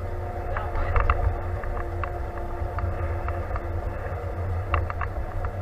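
John Deere tractor engine running steadily under way, heard from inside the cab, a deep drone with a steady hum above it. Short clicks and rattles cut through it around a second in and again near the end.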